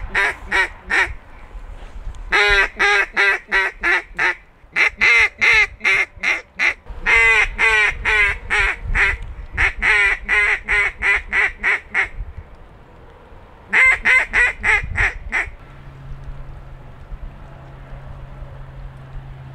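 Duck call blown in rapid series of loud hen-mallard quacks, six runs of about two seconds each with short pauses between, stopping about fifteen seconds in. A faint steady low hum remains after.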